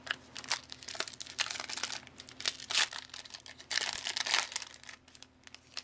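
Foil trading-card pack wrapper crinkling in the hands and being torn open: an irregular run of crackles, with a longer rip about four seconds in.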